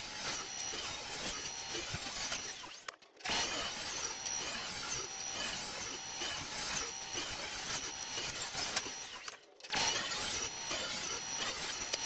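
Table saw with a dado stack cutting wooden beehive-frame side bars in repeated passes. The sound drops out briefly twice, about three seconds and nine and a half seconds in.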